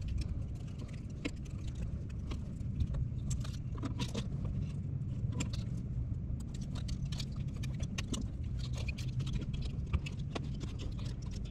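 Small irregular clicks and rattles of plastic zip ties and a mounting plate being handled and fitted onto the back of an LED headlight, over a steady low background hum.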